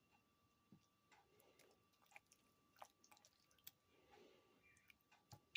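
Very faint soft squishing and scattered light clicks of a utensil spreading cottage cheese over a lasagna layer in a pan.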